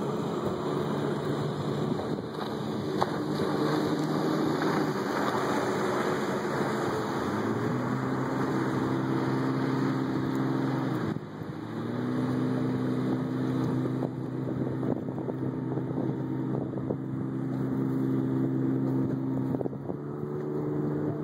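Motorboat engine running at speed, a steady pitched hum that climbs about seven seconds in, dips briefly near the middle and picks back up, with wind noise on the microphone.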